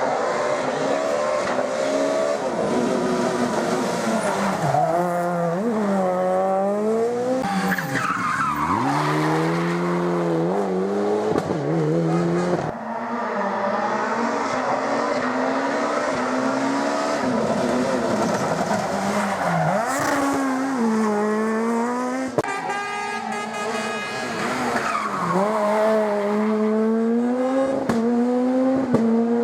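Rally car engines at full effort on a closed stage, the pitch climbing and dropping again and again through gear changes and lifts, with abrupt changes about 13 and 22 seconds in.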